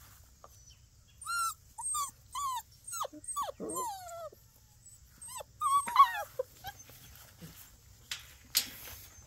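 Puppies whining and yipping while they play-wrestle: a run of short high-pitched cries starting about a second in, and another cluster around six seconds.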